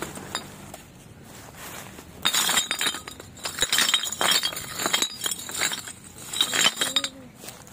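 A heap of empty glass beer bottles clinking and knocking together as they are shifted underfoot, a rapid run of sharp clinks starting about two seconds in and lasting about five seconds.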